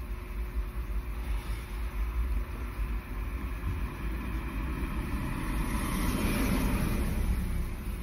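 A small car driving past close by, its tyre and engine noise swelling to a peak about six and a half seconds in and then easing, over low wind rumble on the microphone.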